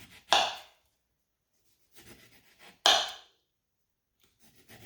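Kitchen knife cutting a lemon, two sharp knocks against the board about two and a half seconds apart, with faint scraping between them.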